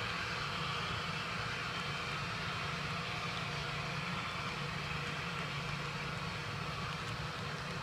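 HO-scale model freight train running: covered hopper cars rolling steadily along the track, with the simulated diesel engine sound of three Canadian National SD38-2 locomotives' Tsunami sound decoders running underneath.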